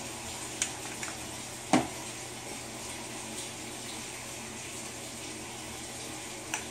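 Metal knocks and clicks of an aluminium plastisol injector being handled and lowered into a glass cup of melted soft plastic: a few light taps and one louder knock about two seconds in, another near the end. A steady hiss with a faint hum runs underneath.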